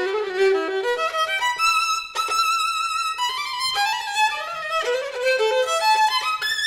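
Solo violin bowed with a Galliane bow, whose frog is angled so that more of the hair stays flat on the string. It plays a flowing melodic passage of quickly changing notes, with vibrato on the longer ones.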